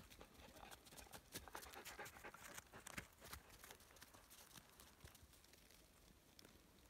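Near silence, with faint scattered clicks and rustling that are busiest over the first three seconds or so, then thin out.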